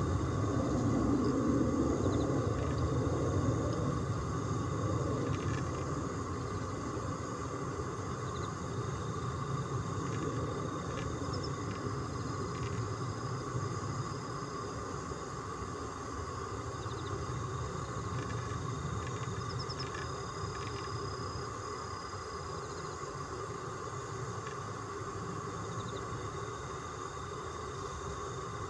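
Steady low background rumble with a faint steady hum, slightly louder in the first few seconds, and a few faint high chirps or ticks scattered through.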